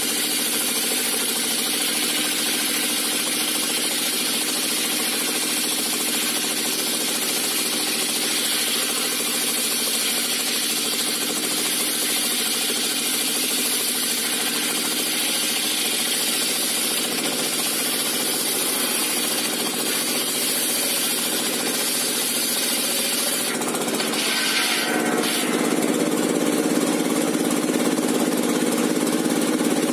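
Homemade diesel-driven circular sawmill ripping a large log: the big saw blade cutting through wood over the steady running of a single-cylinder dompeng diesel engine. The sound changes about 24 seconds in, near the end of the cut, and grows slightly louder.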